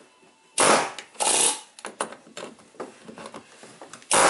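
Pneumatic air chisel hammering in short bursts on the rusted steel lock ring of a fuel pump module to break it loose: two bursts in the first second and a half and a third near the end, with light metallic ticks in between.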